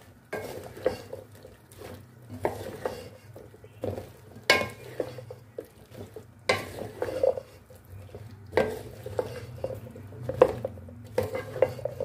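Wooden spatula stirring cauliflower florets and mince masala in a metal pan, with irregular scraping and sharp knocks against the pan.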